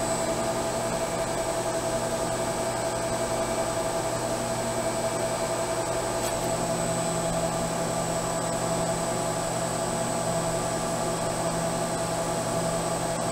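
Enclosed CNC vertical mill running a program: steady whine and hum of the spindle and machine, the end mill turning without cutting as it creeps down at a low feed-rate override. A lower hum drops away early on and comes back about halfway through.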